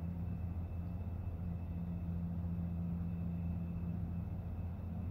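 Steady low hum with a faint high whine above it, unchanging throughout; no distinct action sound.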